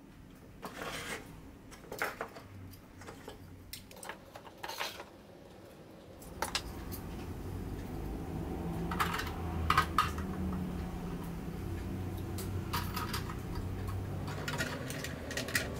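Light metallic clinks and clicks, about a dozen scattered through, as the stainless-steel parts of a small homemade stove are handled and set in place. From about six seconds in, a low steady hum sits underneath.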